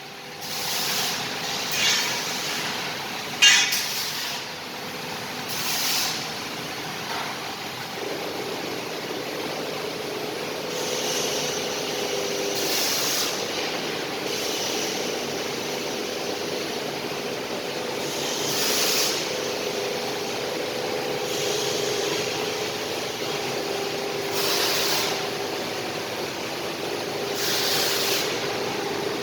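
CNC tube bending machine running: a steady machine hum with short bursts of air-like hiss every few seconds, and a sharp click about three and a half seconds in.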